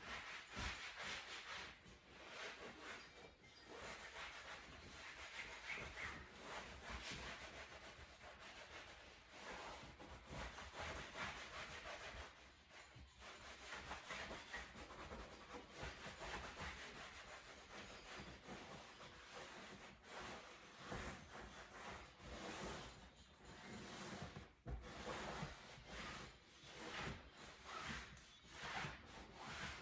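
Faint, continuous rubbing on leather upholstery in irregular strokes, as the couch is wiped during cleaning and restoring.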